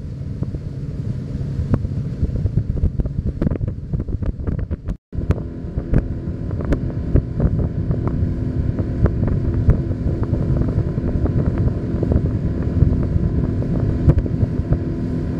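A boat's outboard motor running steadily as the boat heads across the lake, with wind buffeting the microphone and scattered sharp knocks. The sound drops out briefly about five seconds in.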